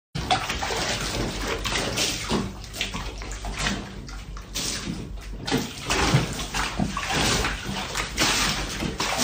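Bath water sloshing violently back and forth in a full bathtub, rocked by the earthquake, slopping over the rim in irregular surges.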